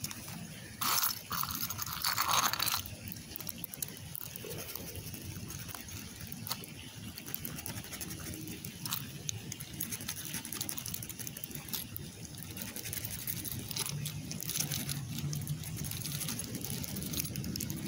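Plastic scratcher scraping the coating off a scratch-off lottery ticket lying on brick, in short scraping strokes. The strokes are loudest around the first two or three seconds, then settle into steadier, lighter scratching.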